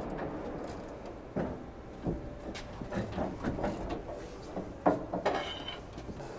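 Metal pry bar levering a kernel processor along the steel frame of a forage harvester: irregular metal knocks and scraping, a few a second, with a brief ringing clank about five seconds in.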